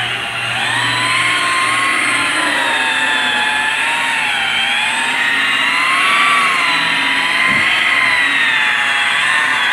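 Electric rotary polisher with a Turbo buffing pad running while buffing car paint: a steady motor whine whose pitch rises and falls slightly.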